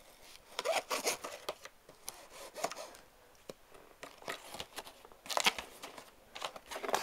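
Cardboard shipping box being opened by hand: packing tape tearing and cardboard flaps scraping and rustling, in irregular bursts, loudest about a second in and again near the end, with one sharp click midway.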